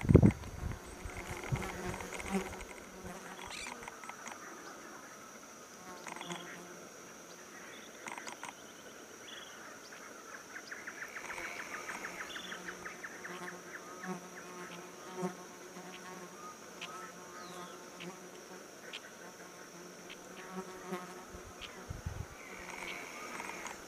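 Insects droning in a steady high-pitched chorus, with scattered short calls and a rapid trill about ten seconds in. A brief low rumble is heard at the very start.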